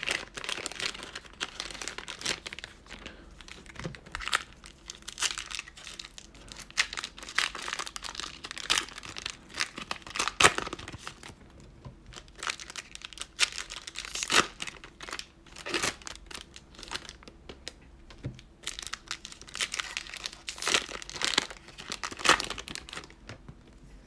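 Plastic cello-pack wrappers of trading cards being torn open and crinkled by hand, in irregular crackles and rustles.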